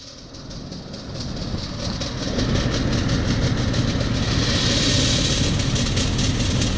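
Rheem air handler's blower motor and fan starting up, building over the first two seconds or so, then running loud with a grinding rattle. The grinding comes from worn motor bearings with far too much play.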